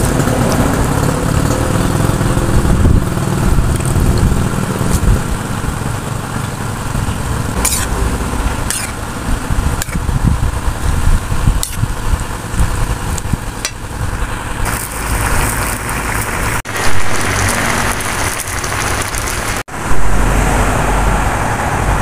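A wok of vegetable stew simmering and being stirred with a metal utensil, with a few sharp clicks of metal on the pan. A steady low rumble runs underneath throughout.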